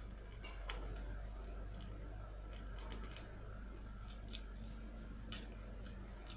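Scattered small clicks and taps of hand tools and parts being handled while a smartphone is taken apart, irregular and a few per second at most, over a steady low hum.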